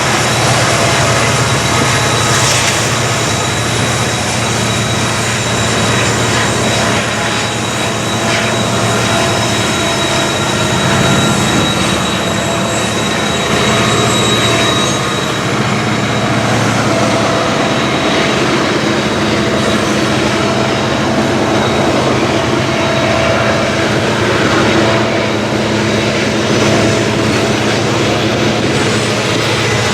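BNSF freight train rolling past: rail cars running steadily over the track, with a thin, steady high wheel squeal on top.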